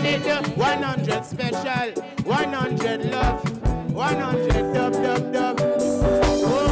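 Live reggae band playing, with a male singer's voice leading over electric guitar and a drum kit's regular kick beat.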